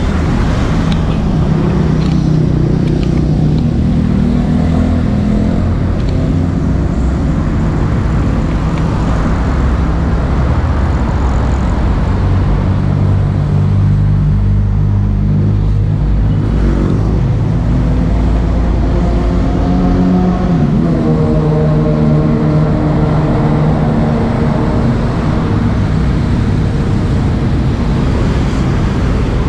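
Road traffic: engines of passing vehicles running over a steady low rumble, their pitch rising and falling as they speed up and slow down.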